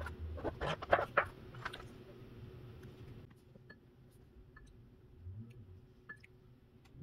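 Chef's knife slicing through king oyster mushrooms onto a bamboo cutting board, about four crisp cuts in the first two seconds. After that there are only faint taps from a wooden spoon at a ceramic bowl.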